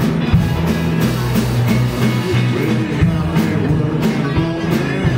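Live blues band playing with drum kit keeping a steady beat, electric guitars, and a blues harmonica played through a hand-cupped microphone on top.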